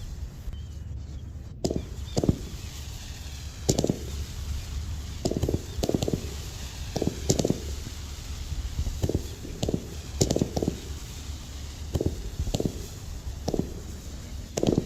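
Low-noise fireworks from a show kit going off in an irregular series of muffled pops, about one or two a second, over a steady low rumble.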